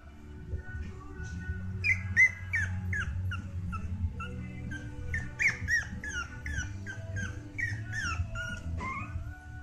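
Jack Russell puppy whimpering: a run of short, falling, high-pitched cries, about two a second, starting about two seconds in and stopping near the end.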